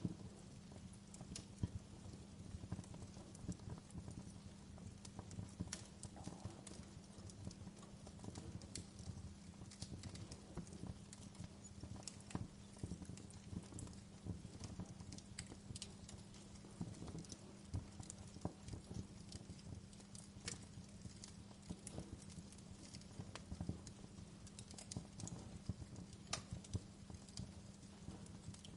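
Fire crackling in a fireplace: irregular small pops and snaps over a low steady rumble.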